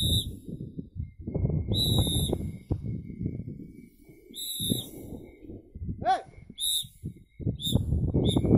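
A whistle blown in about six short, high, steady-pitched blasts that come quicker and shorter near the end, with one swooping blast about six seconds in, calling free-flying pigeons down. A low rumble runs underneath.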